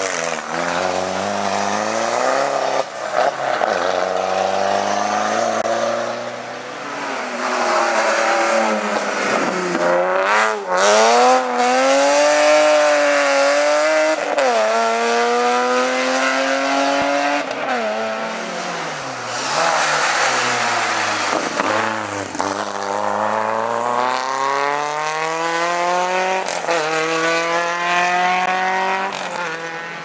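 Hillclimb race cars, a Volkswagen Golf Mk4 and a BMW E36, accelerating hard uphill at full throttle. The engine note climbs through the gears and drops at each shift, with a couple of sharp cracks about ten seconds in.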